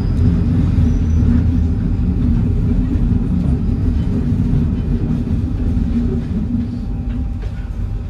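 Paris Métro Line 5 train running between stations, heard from inside the carriage: a steady, loud low rumble of wheels and running gear on the track, easing slightly near the end.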